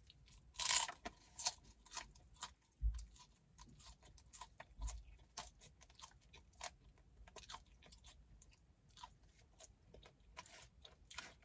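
A person chewing crunchy food up close to the microphone, with crisp crackles and wet mouth clicks between bites. Two short low thuds come about three and five seconds in.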